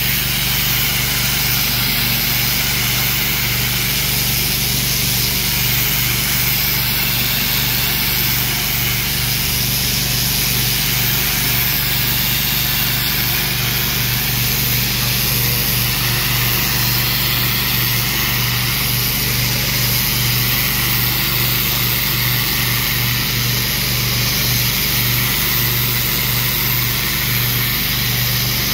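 Pressure washer running continuously: a steady motor drone with the hiss of the high-pressure water jet striking a brick wall.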